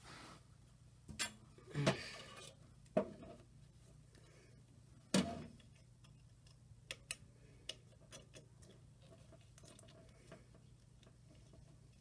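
Clicks and knocks of a hard drive and its cables being fitted into a desktop computer, with a few sharp knocks in the first five seconds, the loudest about five seconds in, then fainter scattered ticks.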